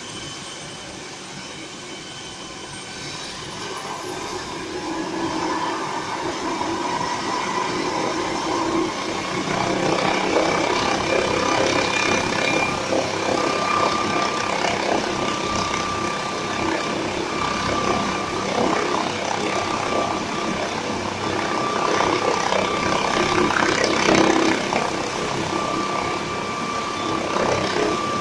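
MD 902 Explorer air ambulance helicopter on the ground with its turbine engines spooling up: a high whine climbs in pitch a few seconds in, and the engine and rotor noise grows steadily louder over the first ten seconds or so, then holds.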